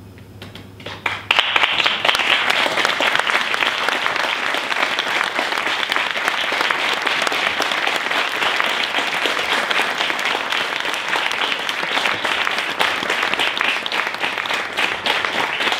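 Audience applauding: a few scattered claps about a second in, then steady, full applause.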